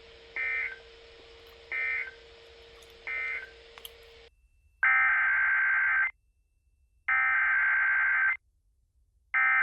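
Emergency Alert System SAME data bursts on NOAA Weather Radio. First come three short bursts of buzzy digital tones that mark the end of a message, over a faint steady hum that cuts off about four seconds in. Then come three louder bursts, each over a second long and about a second apart: the coded header that opens the next warning.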